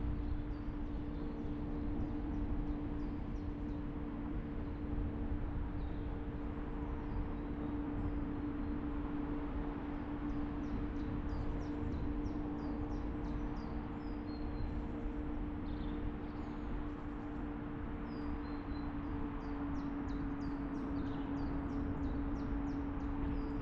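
Steady hum and rumble of a car driving at an even pace, with small birds chirping throughout, most busily about ten and twenty seconds in.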